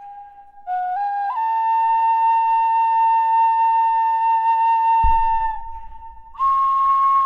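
Background music: a flute playing a slow melody of long-held notes. A soft low tone comes in underneath about five seconds in.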